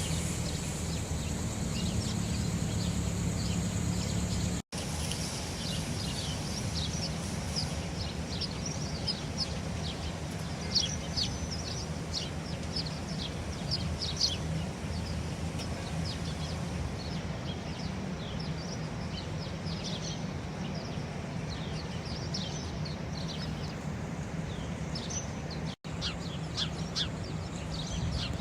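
Sparrows chirping: many short, quick chirps, several birds at once, growing busier after about five seconds, over a steady low rumble of city noise.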